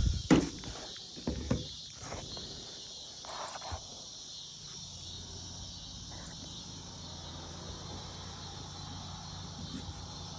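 Knocks and bumps of a phone being handled and set down, loudest in the first second and a half with a few smaller ones a couple of seconds later. After that, a steady low hum and faint hiss.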